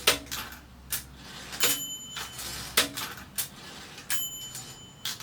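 Consul 224 portable typewriter's carriage and mechanism being worked by hand: a series of sharp metallic clacks, with the margin bell ringing twice, once a little over a second and a half in and again about four seconds in.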